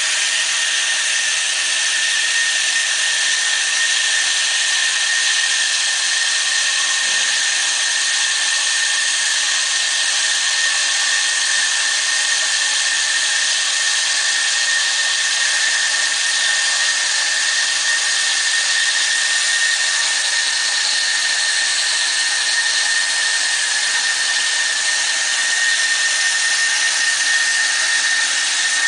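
Band saw machine running and cutting: a steady hiss with a thin, steady high whine, unchanging throughout.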